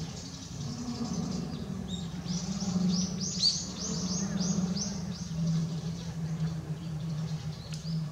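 A bird singing a quick run of about ten high, repeated notes, from about two to five seconds in, over a steady low hum.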